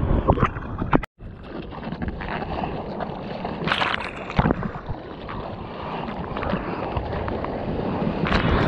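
Choppy sea water splashing and sloshing as a surfer paddles by hand, with wind buffeting the microphone. The sound cuts out for a moment about a second in, and there are louder splashes around four seconds in.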